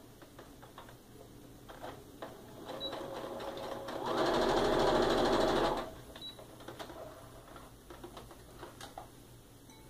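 Electric sewing machine stitching a short seam through fabric squares. It picks up about three seconds in, runs fast for roughly two seconds and stops abruptly. Small clicks of fabric and machine handling come before and after.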